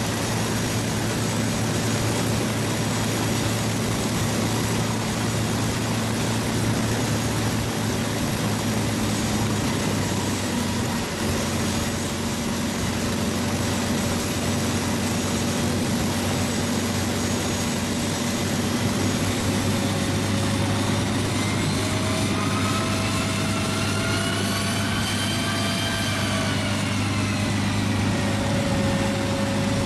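P-51D Mustang's V-12 piston engine idling steadily on the ground, propeller turning. A whine rises and then falls over several seconds near the end.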